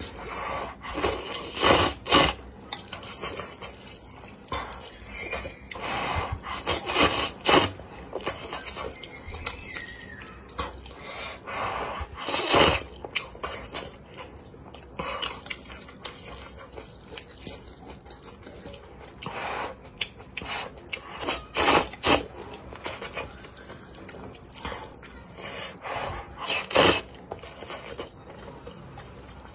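A person eating wide flat noodles in spicy chili oil at close range: a series of short, loud slurps a few seconds apart, with chewing between them.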